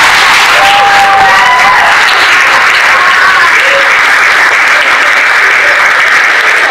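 Loud, steady applause from an audience clapping, with a few voices faintly rising over it near the start.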